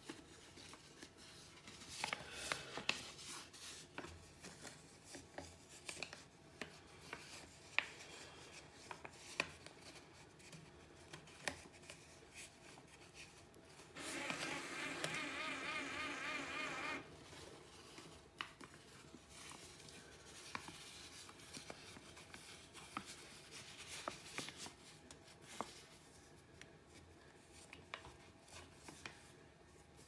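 Faint clicks and paper rustles of a banknote being handled, then about halfway through a small electric motor whirs for about three seconds, its pitch wavering: the note feeder of an electronic money box trying to draw in the note.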